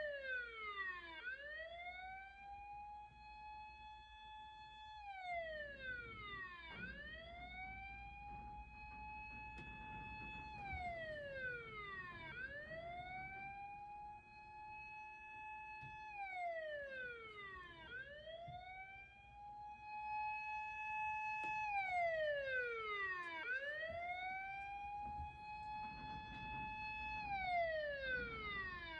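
Fire-engine siren wailing in slow, regular cycles: the pitch rises quickly, holds for a few seconds, then slides down, repeating about every six seconds.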